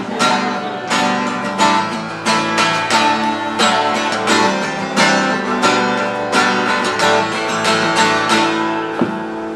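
Solo acoustic guitar strummed in a steady rhythm, about three strokes a second, with no voice.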